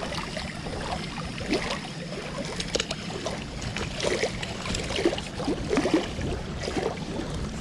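Small waves lapping and splashing at a lake shore, with many irregular little splashes and ticks over a steady low wind rumble.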